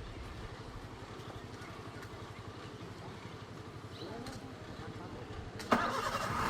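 A vehicle engine idling steadily, with faint voices in the background. Near the end there is a sharp knock, and after it the sound gets louder.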